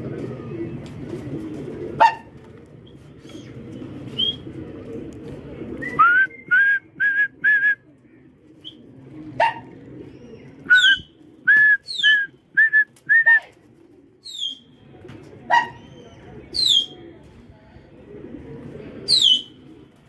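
Birds calling over the rooftops: two quick runs of short, clear whistled notes and several high calls that fall in pitch. Pigeons coo in a low murmur through the first few seconds, and a few sharp clicks come in between.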